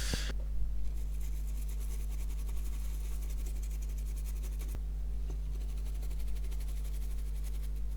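Faint rapid scratching of a laptop circuit board being scrubbed clean of residue, stopping with a small click about five seconds in, over a steady electrical hum.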